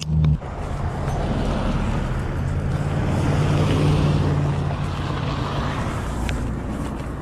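A box truck driving past on the road, its engine hum and tyre noise swelling to a peak about four seconds in and then fading. A brief thump sounds at the very start.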